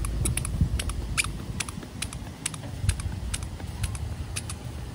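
Footsteps on a hard deck: a run of light, sharp taps, about two to three a second.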